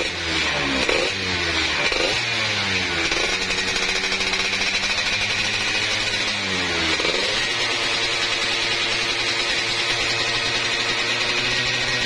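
Yamaha F1ZR's single-cylinder two-stroke engine, tuned to 116 spec, running with a few quick throttle blips in the first three seconds, then idling steadily, blipped once more about seven seconds in.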